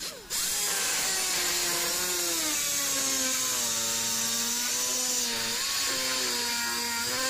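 Handheld power screwdriver driving a bolt into a motorcycle's rear frame bracket. It starts a moment in and runs steadily: a whine that drops in pitch over the first couple of seconds as the bolt takes load, then holds with brief dips, over a steady hiss.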